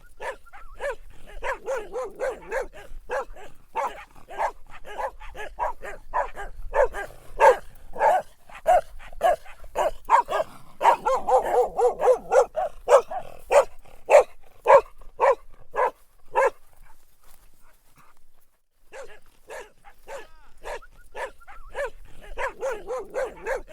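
Dog barking, a quick run of repeated short barks that breaks off for about two seconds roughly two-thirds of the way through, then starts again.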